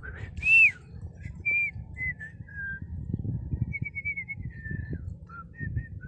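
A person whistling a short tune: a string of clear single notes that step up and down in pitch, the first and loudest one rising and falling about half a second in, over a low rumble of handling or wind noise.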